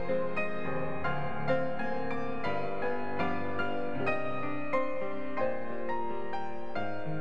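Solo grand piano playing a slow, even piece: a melody struck note by note about every half second over lower notes left to sustain.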